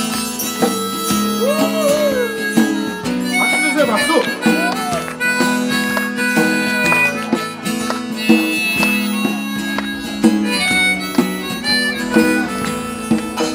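Live acoustic band playing an instrumental passage: harmonica leading over strummed acoustic guitars and a steady hand-drum beat.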